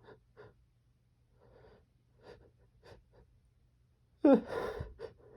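A man's faint, short breaths between sneezes; about four seconds in, one loud voiced gasp with a sharp onset as the next sneeze builds.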